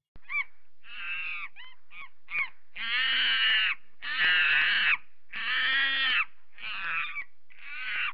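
Monkey calls: a quick series of wavering cries, each under a second long, with short gaps between them.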